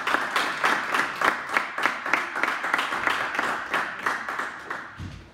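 Audience applauding: dense, irregular hand claps that die away near the end.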